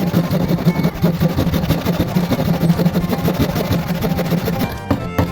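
A woodworking power tool's electric motor running steadily with a fast chattering vibration. Music with an even beat comes in near the end.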